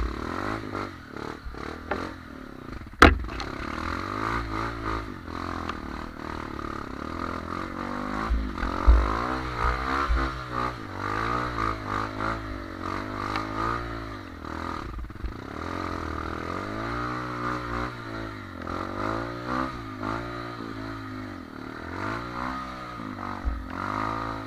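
Trail motorcycle engine revved up and down over and over, the pitch swelling and dropping every second or two, with clattering knocks and one sharp bang about three seconds in.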